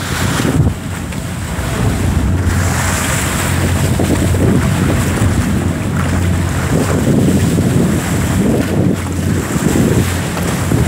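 Wind buffeting the microphone over water rushing past the hull of a catamaran under way, with a steady low hum from the boat.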